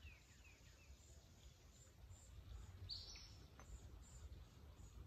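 Near silence with faint wild birds chirping: a run of quick falling chirps in the first second, then short high notes repeating two or three times a second, with one louder chirp about three seconds in.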